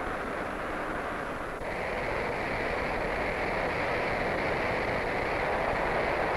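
Steady noise of factory machinery running, an even mechanical din that gets a little louder about a second and a half in.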